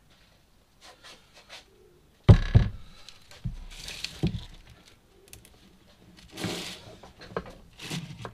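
Handling noise from a telescopic water-fed pole and its pressure hose being moved and laid on a workbench: a sharp knock about two seconds in, the loudest sound, then a few more knocks, rustling and scraping of the hose.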